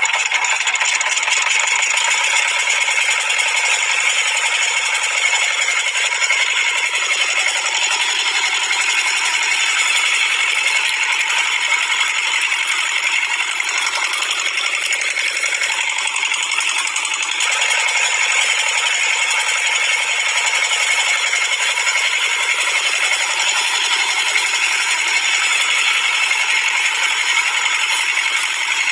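Small motor in a toy model diesel engine, driving a miniature water pump and running with a steady, even rattle.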